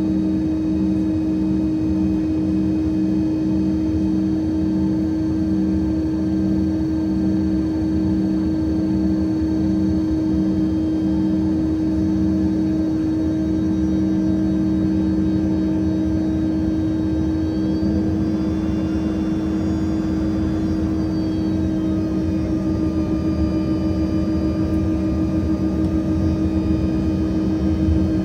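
Steady whine and hum of a parked Embraer ERJ-145 jet's turbine. A low tone pulses about twice a second for the first dozen seconds, then holds steady, and higher whining tones shift about two-thirds of the way through.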